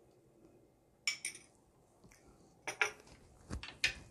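A metal spoon clinking a few times against a bowl and a pan as sauce is spooned out: one clink about a second in, then several close together near the end.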